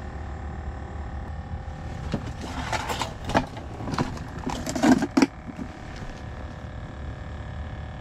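Isobutane canister camp stove burning steadily, a low rumbling hiss under everything. About two seconds in comes a run of sharp knocks and clatter as a plastic box and cooking gear are handled and set down on the ice, ending a little after the five-second mark.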